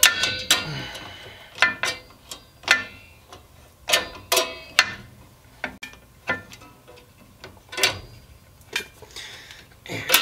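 Drum-brake shoes and their steel return springs on a 1965 Volkswagen Bus rear brake assembly, clinking as they are worked into place by hand: irregular sharp metallic clicks, several with a brief ringing tone.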